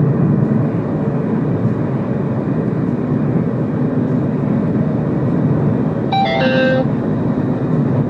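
Steady road and engine noise inside a moving car's cabin. About six seconds in, the Trendvision MR-4K mirror dash cam gives a short electronic warning chime from its SpeedCam GPS informer.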